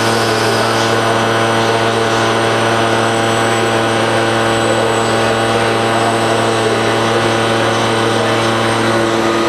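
Steady, loud machine drone of a robot-loaded Daewoo Puma CNC lathe cell running, a strong low hum with several steady tones above it.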